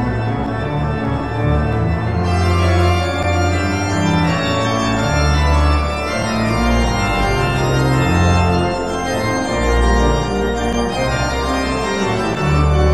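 Background music with held notes over a slow-moving bass line.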